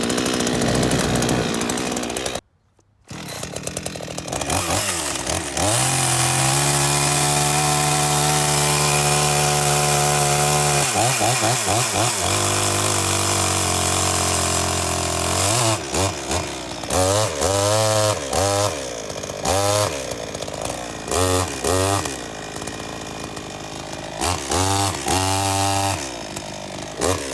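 Old two-stroke chainsaw on its first run after sitting for years. It is revved up and held at high speed for several seconds, drops back to idle, then is blipped on the throttle about eight times, with a brief drop-out near the start.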